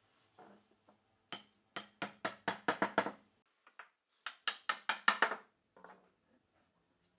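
Club hammer striking a pine table frame, driving the tenons home into their mortises: a run of about nine sharp knocks that come quicker and quicker, then after a pause of about a second another run of about seven.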